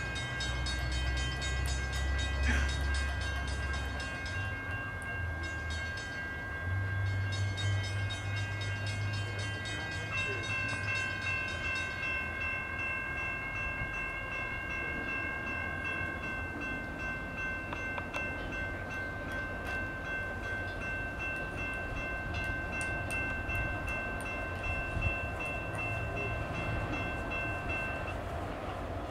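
Railroad grade-crossing warning bell ringing steadily, the signal that a train is approaching the crossing; it stops shortly before the end. A low rumble comes and goes during the first half.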